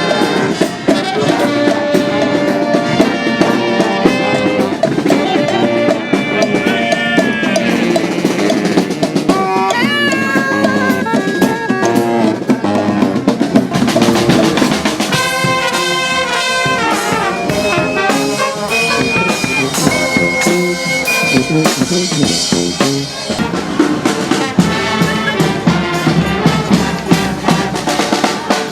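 Street brass band playing a tune: trumpets and trombones over a drum kit and snare and bass drums.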